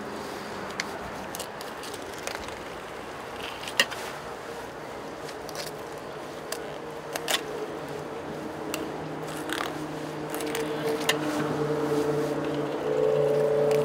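Fillet knife cutting through a wahoo fillet on a cleaning table: scattered short scrapes and clicks of the blade and the fish's skin against the board. A steady hum of several low tones comes in over the last few seconds.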